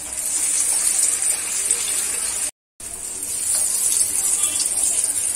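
Chana dal pakoras deep-frying in hot oil in a kadhai: a steady, high sizzling hiss that breaks off for a moment about halfway through, then carries on.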